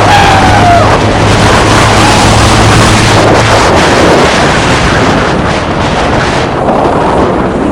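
Motorboat under way at speed: its engine hum runs under loud wind buffeting the microphone and rushing water, and the hum drops away about three and a half seconds in.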